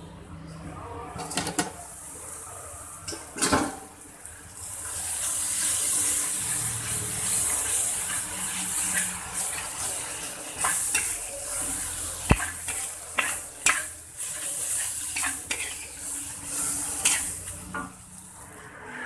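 Mie Aceh noodles stir-frying in a large steel wok: a steady sizzle with a metal spatula scraping and clanking against the wok every second or so. A couple of sharper metal clanks come in the first few seconds, before the sizzle starts.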